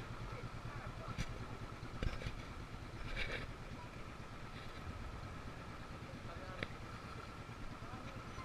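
Small engine of a wooden outrigger boat running steadily under way, with a fast even chug, and a brief knock about two seconds in.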